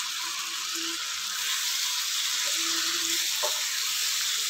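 Steady sizzle of chopped onion, capsicum, carrot and corn frying in oil in a non-stick pan with tomato puree. A wooden spatula starts stirring near the end.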